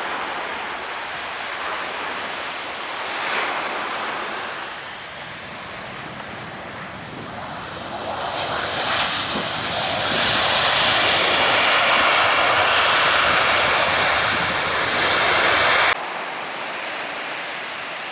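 Aircraft engine noise building up as a plane passes close, over a steady wash of beach surf and wind; it grows loud about halfway through, with a faint whine in it, and cuts off suddenly near the end.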